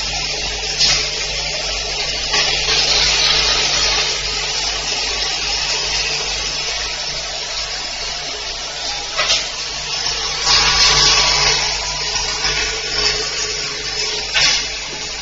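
Automatic flip-top cap closing machine running: a steady low hum from the vibratory bowl feeder and belt drive under a continuous rattling hiss of plastic caps moving through the machine. Several brief louder hissing surges come through, about a second in, near two and a half seconds, a few in the middle, and near the end.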